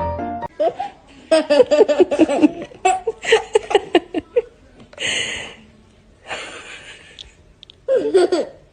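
A person laughing hard in quick, rapid bursts, then two breathy gasps without pitch, and a short laugh again near the end.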